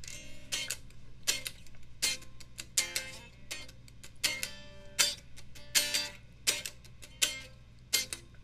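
Guitar strummed in short chord strokes, one about every three-quarters of a second, each cut off quickly.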